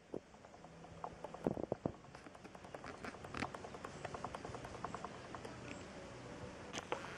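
Handling noise on a handheld camera: irregular small clicks and taps, closely spaced through the middle, over a faint hiss.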